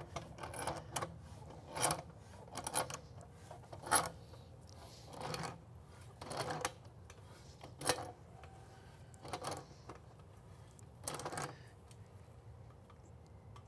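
Pipe wrench tightening a threaded fitting onto steel pipe: a series of short metallic clinks and scrapes, about one every second or so, as the wrench is pulled and reset stroke by stroke.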